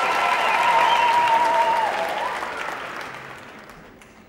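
Audience applauding in a large hall, with a long high-pitched cheer held over the clapping for the first two seconds. The applause then dies away over the last two seconds.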